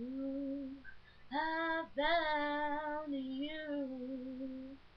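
A young female voice singing unaccompanied: two short held notes, then a long, wavering sustained note.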